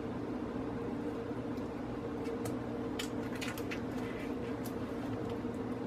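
A steady low hum runs throughout, with a few light clicks and scrapes of a metal spoon scooping diced avocado out of its skin, mostly between about two and five seconds in.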